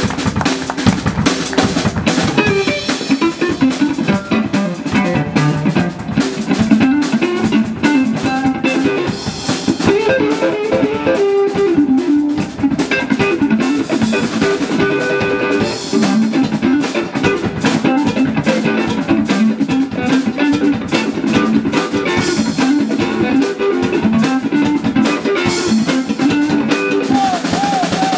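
Live blues band playing an instrumental passage: a Stratocaster-style electric guitar plays moving melodic lines over a drum kit and electric bass.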